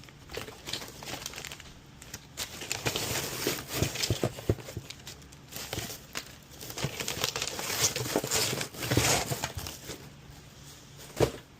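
Plastic packaging crinkling and rustling in irregular bursts with sharp little crackles as it is handled and unwrapped, loudest in two spells, with a single click near the end.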